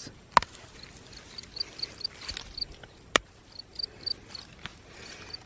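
Insect, likely a cricket, chirping in quick runs of short high chirps with brief pauses between runs, plus two sharp clicks, one near the start and one about three seconds in.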